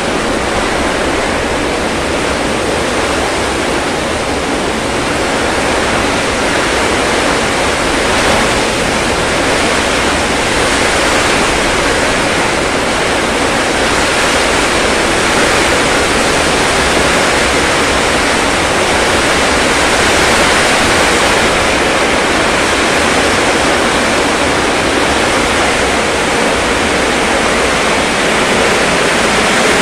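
Heavy downpour: a loud, steady rush of rain pouring onto the street and roofs.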